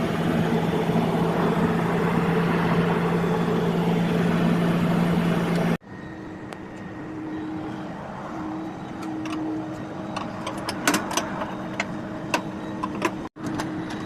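A machine running with a steady, even hum. About six seconds in the sound cuts to a quieter hum, with a scatter of sharp clicks and taps near the end.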